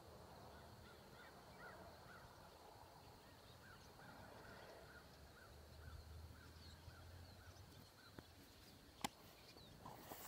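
Faint distant birds calling, a long run of short honk-like calls repeated a few times a second, over an otherwise near-silent dawn. A sharp click about nine seconds in.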